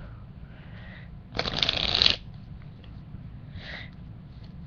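A deck of playing cards being riffle-shuffled: one loud, rapid flutter of cards lasting under a second, about a second in. Softer rustles of the cards being handled come just before and again near the end.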